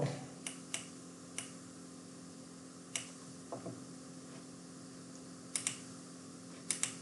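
Scattered computer mouse clicks, sharp and short: a few single clicks in the first second and a half, one around three seconds, and quick double clicks near the end, over a faint steady hum.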